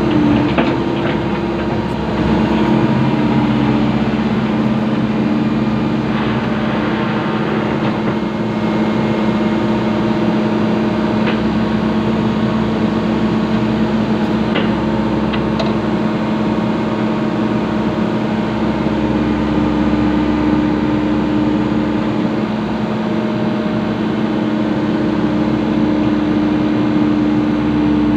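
Excavator's diesel engine running steadily, with a humming tone and a few faint clicks and knocks.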